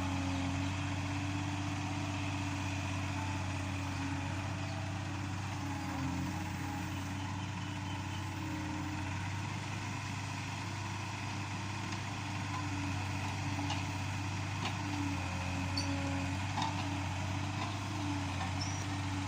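Yanmar B37 mini excavator's diesel engine running steadily with a low drone, its pitch wavering slightly, and a few faint clicks in the second half.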